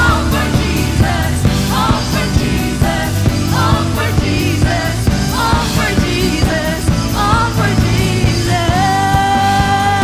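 Live worship band with drums and bass playing a rock-style song while a voice sings short phrases, then holds one long note near the end.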